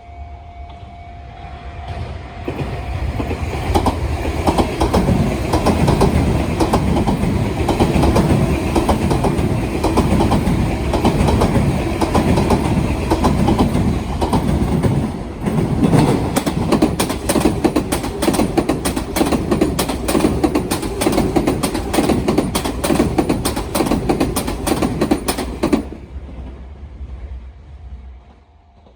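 Sotetsu train passing over a turnout, its wheels clattering loudly over the switch's rail joints. The sound builds about two seconds in, and a fast, dense run of clacks comes in the second half before the train fades away near the end.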